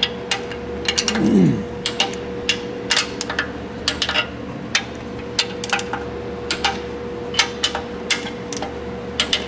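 Torque wrench working the cylinder head bolts of a 1.3L Suzuki Samurai engine, giving sharp metallic clicks at irregular intervals as each bolt is checked for torque a final time. A faint steady hum runs underneath.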